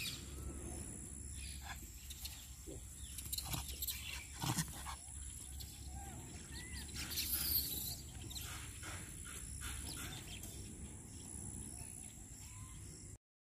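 Faint outdoor ambience: a steady high-pitched hiss, a few light rustles and clicks, and several short chirps about seven seconds in.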